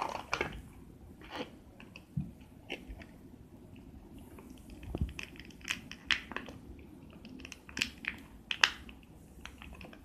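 Clear plastic packaging crinkling and small plastic toy pieces clicking as they are handled and unwrapped: scattered crackles and clicks, busiest in the second half, with the sharpest click about eight and a half seconds in.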